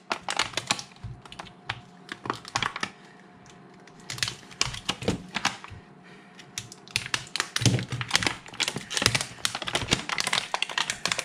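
Hands handling a lithium battery pack and its torn black plastic heat-shrink wrap: a run of irregular small clicks, taps and crinkles, quieter for a moment about three seconds in.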